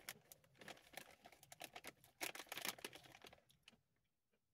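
Soft crisp crackling of a tortilla-chip bag being handled and chips being crunched, a quick run of small clicks that dies away about three and a half seconds in.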